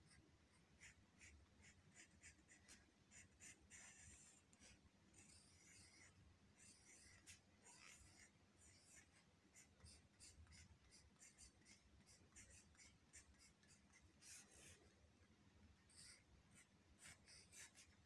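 Faint scratching of a pencil on paper, drawing in many short strokes.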